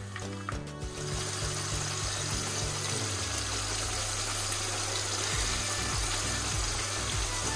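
Background music over a steady sizzling hiss of tomato sauce cooking in a frying pan, with liquid poured into the pan and stirred in with a wooden spoon.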